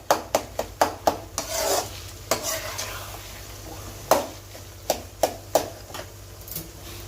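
Metal spatula striking a frying pan in quick taps, about four a second, as the mutton brain fry is broken up and stirred. The taps then give way to scraping in the pan and a few scattered knocks.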